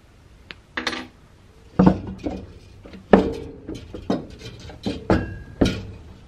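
Metal cryocooler housing being turned over by hand on a wooden surface: a series of sharp knocks and clunks, several with a brief metallic ring.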